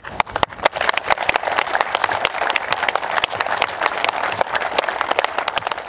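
Crowd applauding, many hands clapping at once.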